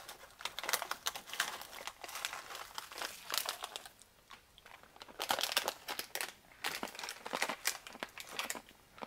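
Plastic candy bag crinkling in several bursts as it is handled and pulled open.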